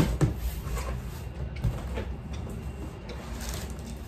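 Flaps of a large cardboard box being pulled open and pushed back by hand: two sharp knocks at the start and another about halfway, with softer cardboard handling noise between.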